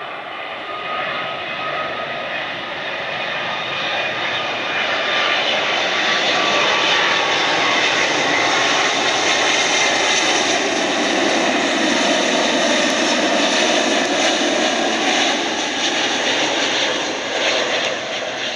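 Jet engines of a Boeing 777 twin-engine airliner on final approach. The engine roar and whine grow louder over the first several seconds, hold steady as the plane passes close by with the pitch dipping, then ease off near the end.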